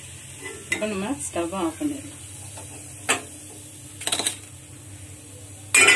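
Steel spatula clinking against an iron kadai a few times, the loudest cluster near the end.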